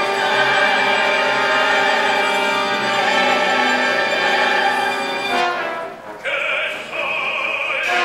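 Contemporary opera music: an orchestra with voices holding dense sustained chords. About five and a half seconds in it thins out to a sparse passage with a high held note.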